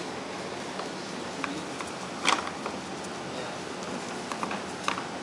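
Room tone: a steady hiss with scattered small clicks and ticks, the loudest about two seconds in.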